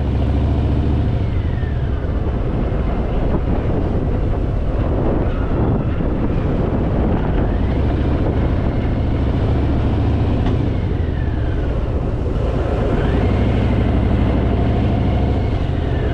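Harley-Davidson Fat Boy's V-twin engine running at low revs, a steady low drone that shifts in pitch a few times.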